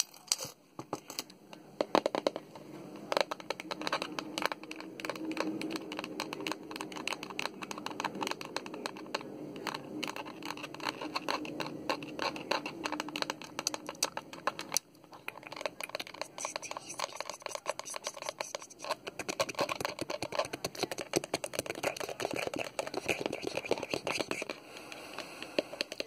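Fingernails tapping and scratching fast on a Pringles can, then, from about halfway, on a plastic Tums bottle.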